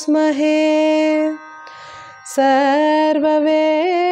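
A woman's solo voice sings a Sanskrit devotional verse in Carnatic style, holding a long note on the word "upāsmahe". After a short breath about two seconds in, she resumes with wavering pitch ornaments (gamakas).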